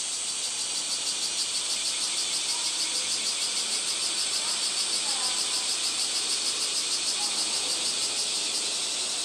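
Cicadas singing: a high, rhythmically pulsing buzz that swells about a second in and eases near the end, over a steady background hiss of insect song.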